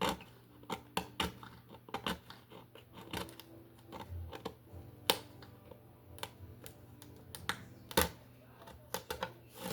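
Irregular light clicks and taps of small objects being handled, a few sharper knocks among them, over a faint steady hum.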